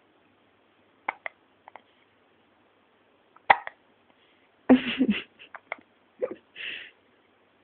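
A newborn baby hiccuping: a sharp hiccup about three and a half seconds in, with fainter clicks about a second in, then a louder, longer sound about five seconds in and a few small soft sounds after it.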